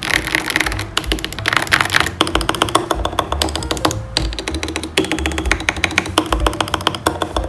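Background music over a rapid run of light plastic clicks, many per second, from mechanical keyboard switches being handled.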